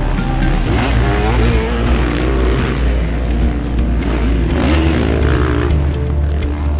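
Motorcycle engine running on a rough dirt trail, its pitch rising and falling as the rider works the throttle over the bumps.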